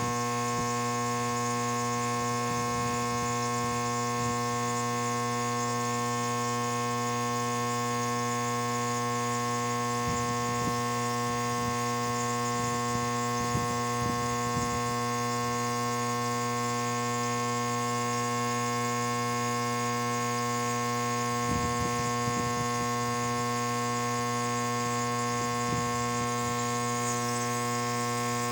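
Compressor nebulizer running with a steady electric hum as it turns liquid medicine into mist for inhaling. A few faint low bumps come through it.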